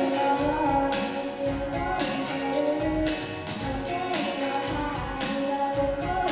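An idol group singing a pop song into microphones over its musical accompaniment with a steady beat.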